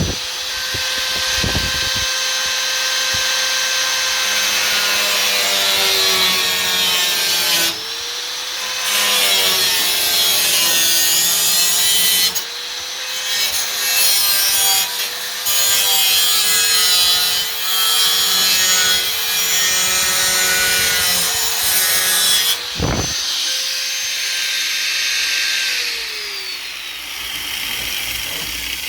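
Power tool cutting sheet steel along a marked line. Its motor whine sags and recovers in pitch as it bites, stops and restarts several times, and winds down with a falling pitch near the end. A couple of low bumps come from handling the panel.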